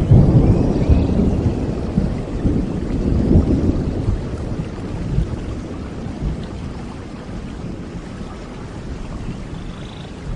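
A rumble of thunder, loudest at the start and fading away over about six seconds, over steady rain.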